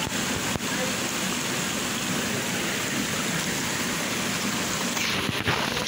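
Shallow rocky stream running over boulders and a small cascade: a steady rush of water, with a couple of brief knocks near the end.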